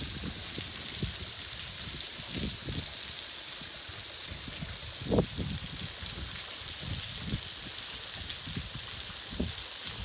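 A thin waterfall dropping as a spray of drops off an overhanging rock ledge and spattering onto the boulders below: a steady rain-like hiss. Irregular low thumps run under it, the loudest about five seconds in.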